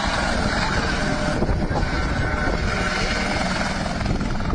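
Light helicopter hovering low and close, turning on the spot: a steady, fast rotor beat over the engine's running noise.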